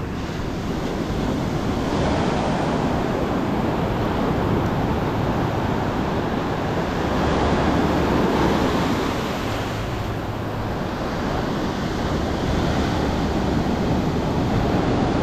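Ocean surf breaking and foaming water washing up and back over the sand in a steady rush, swelling a little about eight seconds in.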